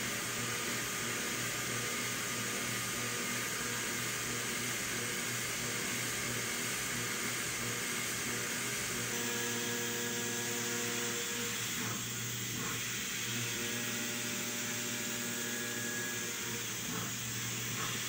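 CNC milling machine spindle running an end mill through a metal block in a roughing cut: a steady hiss of cutting with a hum, and a few pitched tones that come in about nine seconds in and again near fourteen seconds as the tool's engagement changes.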